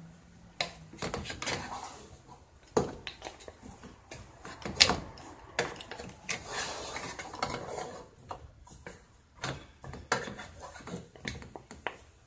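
Wooden spoon stirring raw neck bones in a large pot: irregular knocks and clicks against the pot, with a stretch of scraping about six seconds in.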